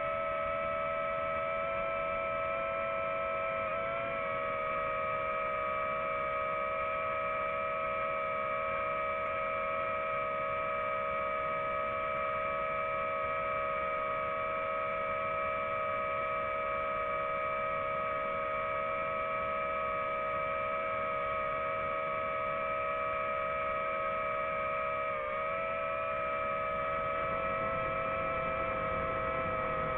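Multirotor drone's motors and propellers hovering, a steady whine at several pitches that dips briefly twice as the motors adjust speed.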